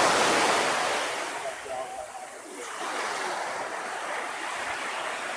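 Surf washing onto a sandy beach, swelling loudest at the start and again about three seconds in, with faint voices of people in the background.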